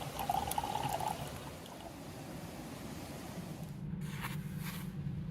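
Liquid being poured, a steady trickle with a brief ringing tone in the first second, and a low hum coming in near the end.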